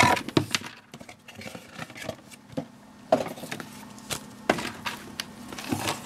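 Cardboard box and paper insert being handled, with light rustling and a scattered series of short knocks as the zippered sunglasses case is taken out of its packaging.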